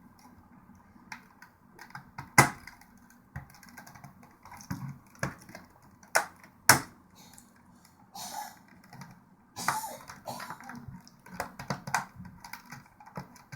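Plastic clicks, snaps and scraping of a pry tool working the front bezel of a Seagate Expansion Desktop drive enclosure loose. The sharpest snaps come about two and a half seconds in and twice more around six to seven seconds in.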